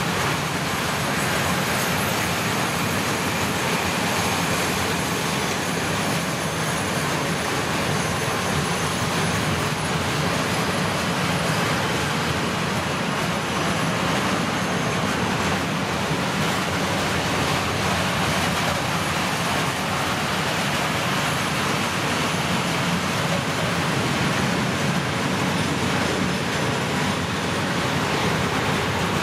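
A long freight train of open-top wagons rolling past, the steady noise of its wheels running on the rails.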